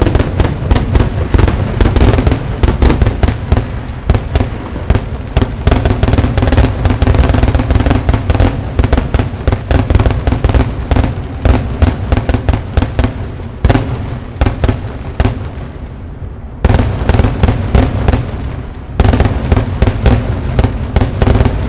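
Fireworks finale: aerial shells bursting in a rapid, overlapping barrage of many bangs a second. The barrage eases briefly about two-thirds of the way through, then picks up again.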